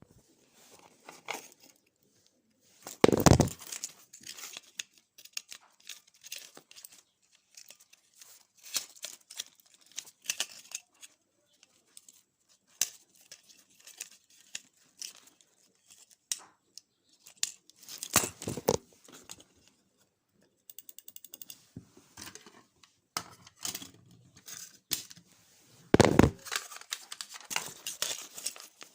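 Crinkling and rustling handling noise with scattered clicks, broken by three loud knocks and a brief rapid buzz.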